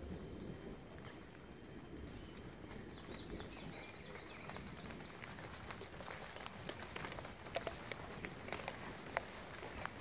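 Forest ambience with faint high bird chirps, and from about halfway a run of scattered light ticks and taps on the wooden feeder.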